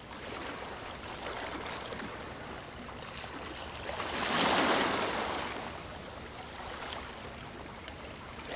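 Small waves lapping and splashing at a lake shore, with a louder wash of water about four to five seconds in.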